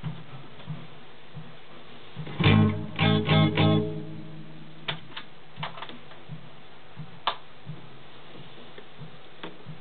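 Guitar played through a 1978 LEM Baby tape echo mixer amplifier: a few loud strummed chords about two and a half seconds in, ringing out briefly. Scattered sharp clicks come before and after, as the knobs and plugs are handled.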